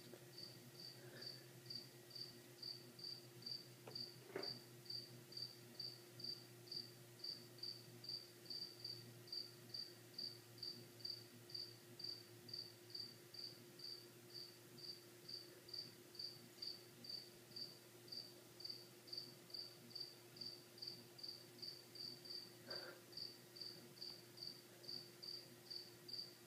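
A cricket chirping steadily, about two short chirps a second, over a faint steady hum, with a soft knock about four seconds in.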